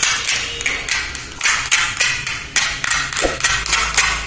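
Plastic toy kitchen pieces clicking and clacking together as they are handled, an irregular run of sharp taps about two or three a second.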